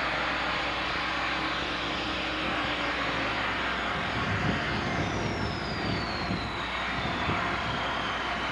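IHC 4366 four-wheel-drive tractor's DT-466 turbocharged diesel running steadily under load while pulling a cultivator. A thin high whine falls slowly in pitch through the second half.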